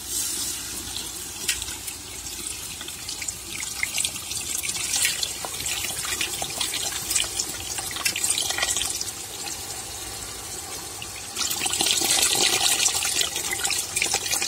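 Tamarind water poured from a steel bowl into an aluminium pot of fried onions and tomatoes, splashing and trickling into the masala. The pour grows louder near the end.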